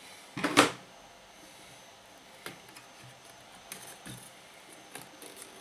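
Handling noise from the record player's metal control panel: a brief scrape about half a second in, then a few light clicks and knocks as the panel is gripped and worked loose.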